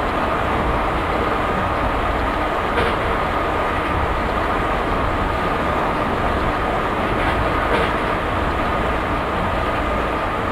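High-speed electric train running fast along the track: a steady rumble and rushing rail noise with a constant whine through it, and two faint clicks.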